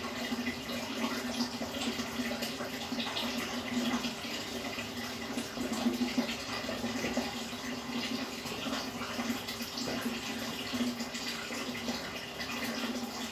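Aquarium filter running: a steady trickling, bubbling rush of water over a constant low motor hum.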